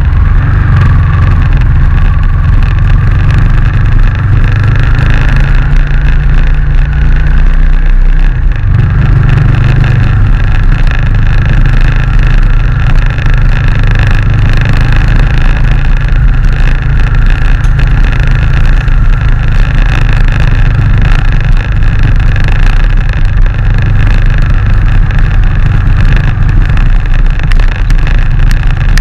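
Motorcycle engine running at steady low revs under way, its note dipping and picking up again about eight seconds in.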